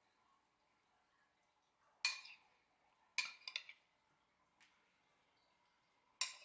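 Metal spoon clinking against ceramic dishes while melted butter sauce is spooned from a bowl: one clink about two seconds in, a quick run of three or four about a second later, and another near the end, each with a short ring.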